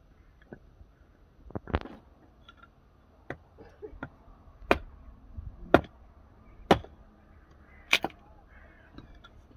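Small hatchet chopping and splitting firewood against a log, sharp chops coming about once a second, the hardest strokes in the second half.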